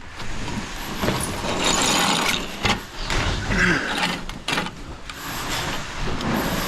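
Irregular scraping and rubbing with sharp knocks, typical of hand work with tools and building materials.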